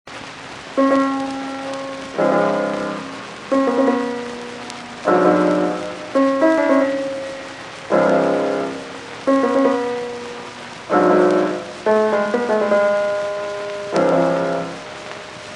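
Background music: chords struck about every second and a half, each dying away before the next.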